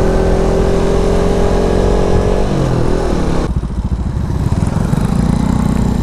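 Suzuki Satria F150 Fi's single-cylinder engine running under way, heard from the bike itself. It runs at a steady pitch, then the note falls as the bike slows, and about halfway through it turns abruptly lower and duller with a low pulsing.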